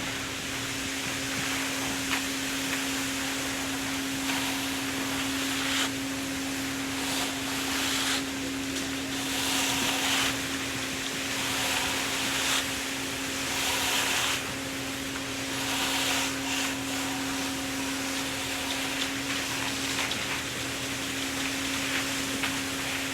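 A machine's motor runs steadily at one pitch while scraping swishes come and go every second or two.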